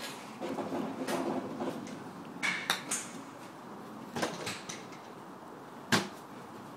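A junior golf club striking a ball off a driving-range mat: one sharp crack about six seconds in. A few lighter clicks come before it, around the middle.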